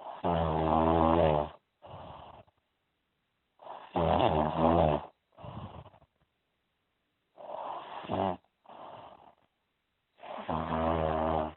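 A person snoring: four loud snores, one about every three and a half seconds, each followed by a shorter, softer breath.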